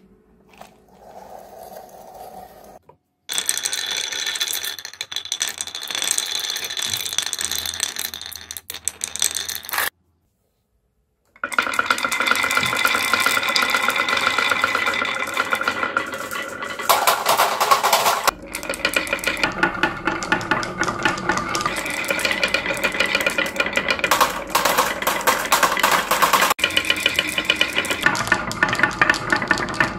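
Dozens of glass marbles tipped out of a plastic toy dump truck, clattering and rolling down grooved wooden wave-slope tracks. It is a dense, continuous run of clicks and knocks as the marbles strike the wood and each other. It sets in about three seconds in and breaks off briefly near the middle.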